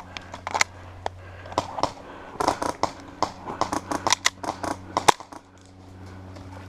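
Airsoft guns firing: a string of irregular sharp shots and snaps, densest from about two and a half to five seconds in.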